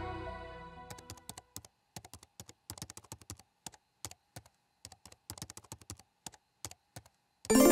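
Typing on a computer keyboard, irregular runs of key clicks, after the soundtrack music fades out at the start. Near the end a loud, bright chime rings out suddenly and dies away.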